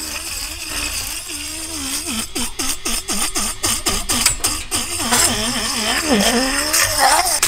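Handheld electric fish scaler running, its motor pitch wavering up and down as the spinning head is pressed and dragged along a fish's side, with rapid ticking as scales are flung off, thickest in the middle.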